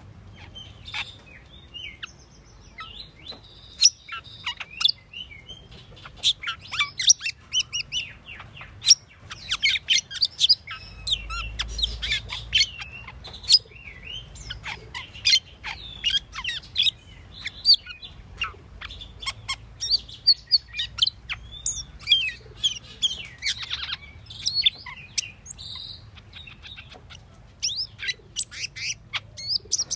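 Asian glossy starling (Aplonis panayensis) calling: a long run of short, sharp, high chirps and whistled notes, several a second, with a few brief pauses.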